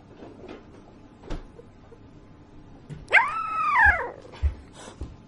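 Sleeping puppy whimpering in a dream: one drawn-out high cry about three seconds in that rises and then falls in pitch, followed by a few soft low thumps.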